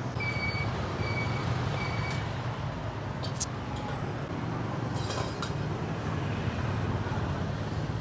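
Street traffic ambience: a steady low rumble of passing vehicles. In the first two seconds a short electronic beep repeats three times, and a few light clicks come later.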